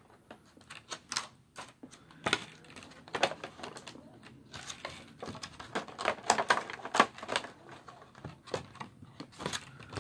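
Clear plastic packaging crinkling and crackling in irregular clicks as hands handle it, busiest a little past the middle.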